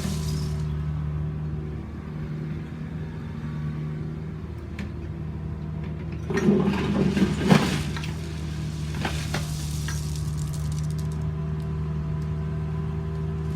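A machine engine running steadily at a low hum, with a burst of scraping, clattering noise about six to eight seconds in.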